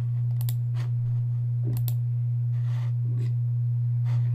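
Steady low electrical hum on the recording, with a few faint mouse clicks on top.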